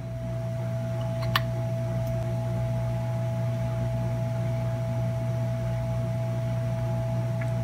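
Steady low electrical hum with a constant higher tone over it, from running workbench equipment, and a single light tick about a second and a half in.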